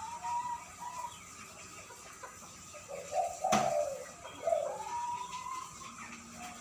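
A decoy bird calling in a big voice: three calls, each a short lower note sliding up into a long held note. A sharp click comes about halfway through.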